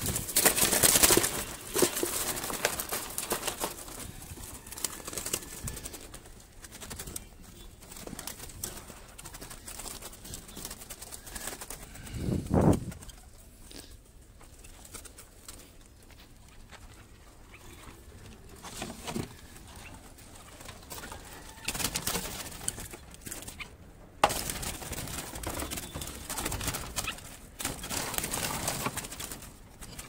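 Birds calling around a mesh aviary, with rustling handling noise and a single dull thump about twelve seconds in.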